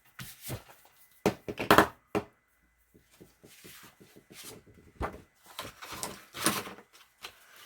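A few irregular knocks and taps on a wooden surface, the loudest a little under two seconds in, with quieter handling and rubbing sounds between them.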